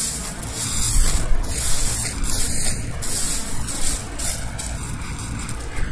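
Gloved hands scraping and spreading crushed landscape rock, the stones crunching and rattling in uneven surges as the gravel is pushed back over the edging.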